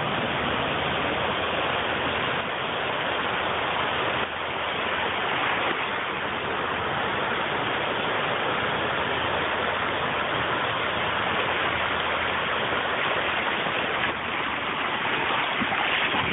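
Ocean surf breaking and washing through the shallows: a steady rushing noise with no pauses.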